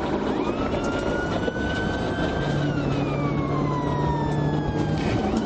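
Police car siren wailing, one slow rise in pitch and then a longer fall, over the steady engine and road noise of a patrol car driving at speed.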